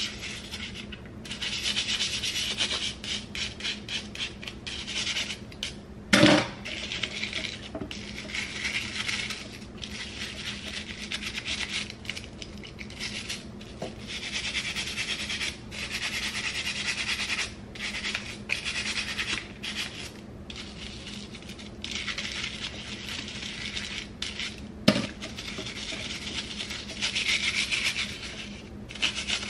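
Plastic combs being scrubbed against a textured cleaning cloth over a sink of soapy water: repeated stretches of rasping, brushing rubs. Two sharp knocks, about six seconds in and again near twenty-five seconds.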